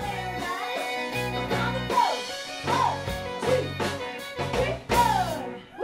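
Live country band playing an instrumental passage: a fiddle sliding up and down between notes over bass guitar and drums.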